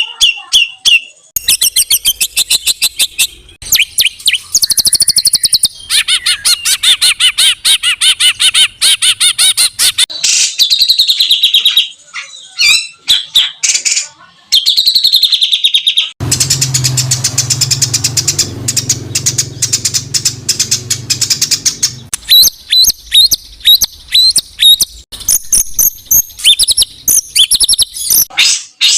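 Songbird song made of rapid, tightly packed repeated notes and trills, high-pitched and harsh, with a buzzier, rasping stretch in the middle. It is the fast, harsh 'tembakan' style of song used as a tutor recording for training murai batu and other cage songbirds.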